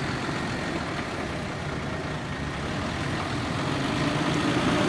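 Off-road 4x4 vehicle's engine running steadily, growing louder over the last second or so as it comes closer.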